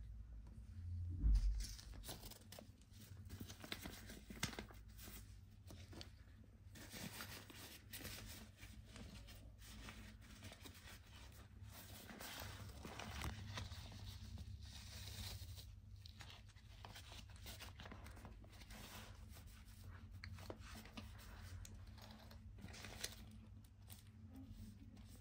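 Close-up rustling and scraping of a cloth drawstring pouch being worked over an electric shaver, in many small irregular crackles, with a dull thump about a second in. Near the end, the shaver in its pouch is set into a hard-shell travel case.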